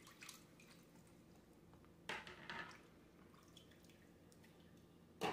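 Faint dripping and splashing of water as dishes are rinsed by hand in basins of water, with a short splash about two seconds in and another near the end.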